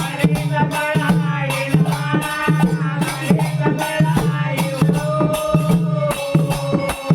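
Bhajan singing: a voice sings sliding, held melodic lines over a steady low drone, with rhythmic percussion strokes keeping a steady beat.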